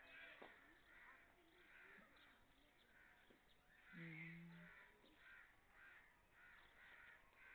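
Crows cawing faintly over and over, about two calls a second. About four seconds in, a short steady low tone sounds for under a second.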